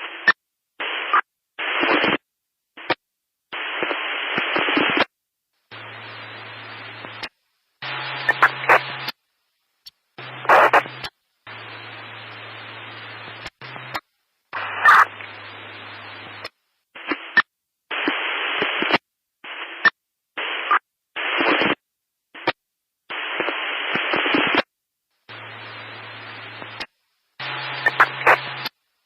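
Static noise: bursts of hiss that switch on and cut off abruptly at irregular intervals, each lasting from a fraction of a second to about two seconds. Some bursts carry a low hum and faint whistling tones, with brief silent gaps between them.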